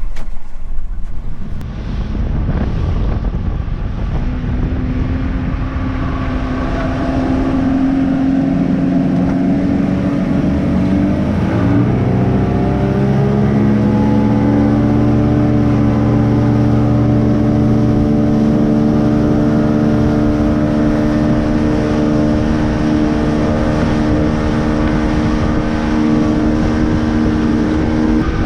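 Motorboat engine throttling up, its pitch climbing over the first ten seconds or so, then running steadily at speed under a constant rush of wind and water.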